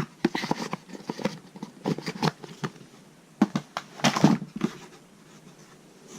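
Hands handling product packaging: clicks, taps and crinkles in three bunches, with quieter gaps between.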